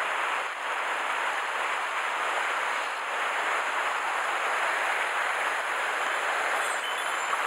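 Steady rush of running water in a small mountain stream.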